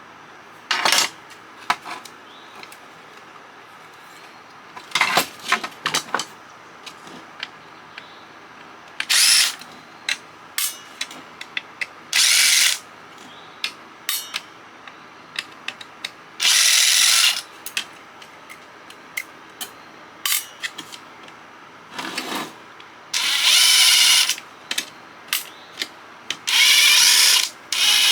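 Cordless drill-driver run in short bursts, about seven of them, each lasting from half a second to two seconds, with small clicks and clatter of parts between.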